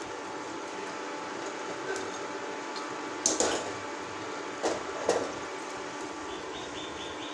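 Steady kitchen hum with a few sharp metal knocks of utensils and cookware being handled, about three seconds in and twice more a couple of seconds later. Near the end come four short, high beeps.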